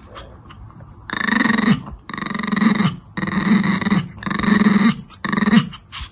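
A Pomeranian growling, five short growls in a row, each under a second: a warning snarl with bared teeth at the other dog that is crowding it.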